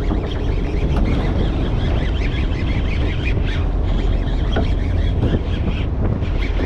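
Wind buffeting the microphone and sea water rushing and sloshing along a boat's hull: a loud, steady rushing noise with a heavy low rumble, and a few light clicks.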